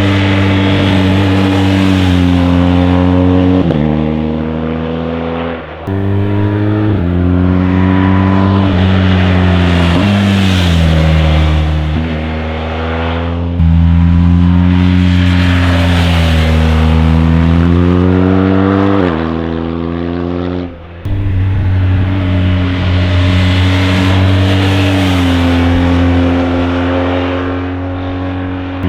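BMW R 1250 GS's 1254 cc ShiftCam boxer twin being ridden hard. Its pitch climbs and then drops sharply, over and over, as it pulls through the gears and is shifted. Twice it goes briefly quiet as the throttle is closed.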